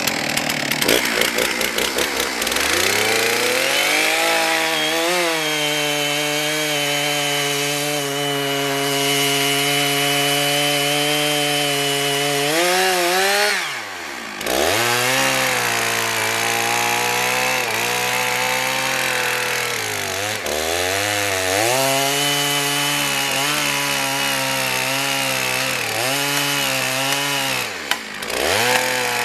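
Chainsaw cutting wood: the motor winds up, runs with its pitch sagging and wavering as the chain bites, and briefly spins down almost to a stop twice before speeding up again.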